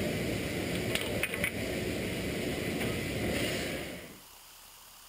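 Weinig optimizing cross-cut saw line running as a board is fed in by hand: steady mechanical clatter with a few sharp clicks about a second in. Just after four seconds in it drops away to a faint hiss.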